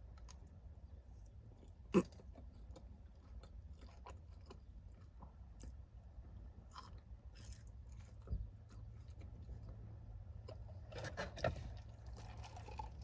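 Close-up chewing and biting of food, with soft crunches and wet mouth clicks scattered through, a sharp click about two seconds in and a small flurry near the end.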